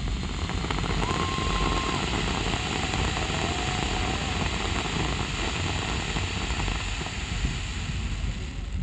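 Fireworks display going off as a dense, steady barrage of crackling with a low rumble underneath, and a short whistle about a second in.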